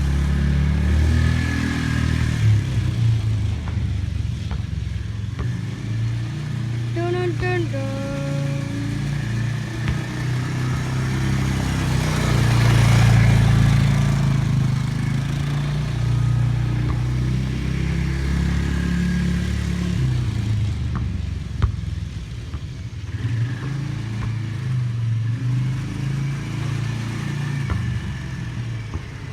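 A motor vehicle's engine running, its low hum shifting in pitch, with a short high pitched whine about seven seconds in.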